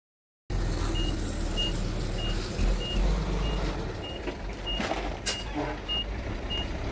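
A bulldozer's reversing alarm beeping in short, high, evenly spaced tones, a little under two a second, over the low running of its diesel engine. A sharp click sounds about two thirds of the way through.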